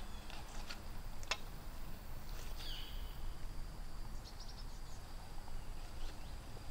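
Woodland ambience: a steady outdoor background hiss with a few short bird chirps. There are some faint clicks in the first second and a half, and a thin, high, steady tone from about two and a half seconds in.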